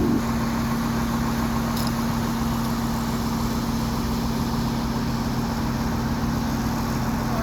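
Diesel engine of a 50-ton mobile crane running at a steady speed, with one even, unchanging tone.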